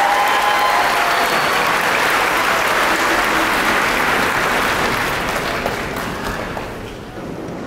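Large crowd applauding, with the last sustained notes of music fading out in the first second; the applause dies down from about five seconds in.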